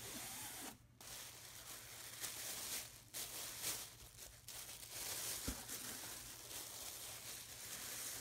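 Clear plastic wrap around a felt hat crinkling and rustling as hands handle it, with short pauses about a second in and near three seconds. There is one soft knock about five and a half seconds in.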